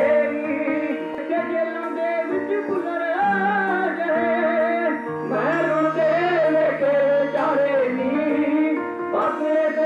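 A male voice sings an ornamented, wavering melody over sustained instrumental notes, as in a live Punjabi song performance.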